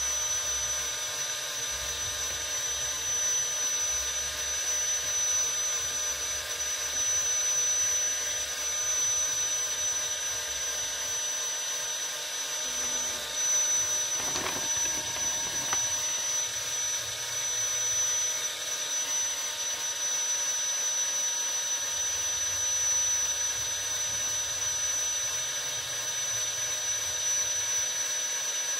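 A small electric motor runs steadily with a high whine, likely the drive that moves the paper under the fixed brush. There is a brief knock about halfway through.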